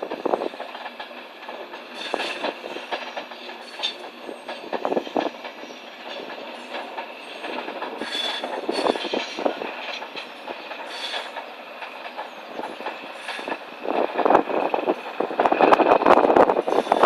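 Train running on rails: an irregular wheel clatter with steady high squealing tones, growing louder near the end.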